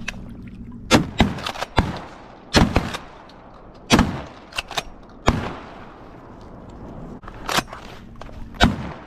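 A volley of about ten shotgun shots fired at ducks coming in over the water. The shots come at irregular spacing, some in quick pairs, and each one echoes briefly.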